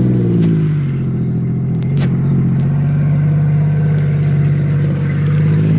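Sea-Doo RXT-X 260 jet ski's supercharged Rotax four-stroke engine idling steadily just after being started, with a sharp click about two seconds in.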